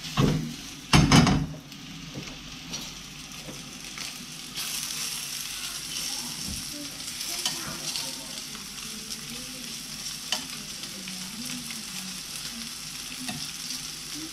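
Floured pieces of western king wrasse sizzling as they shallow-fry in hot vegetable oil in a frying pan. Two loud clatters in the first second and a half as the pan is shaken on the gas burner, then a steady sizzle that grows louder about four and a half seconds in, with occasional clicks of metal tongs against the pan as the pieces are turned.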